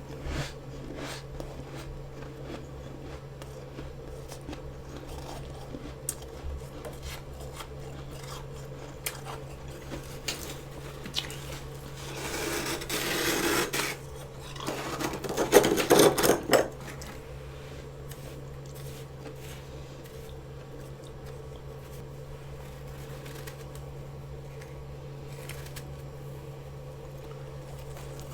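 A metal utensil scraping and clinking against fresh frost inside a mini freezer, with light scattered scrapes and two louder, rougher scraping stretches about halfway through.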